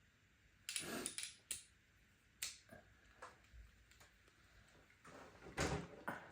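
Irregular clicks and clatter of a socket set's metal sockets and tools being handled: a quick cluster about a second in, a few single knocks, and a louder clatter near the end.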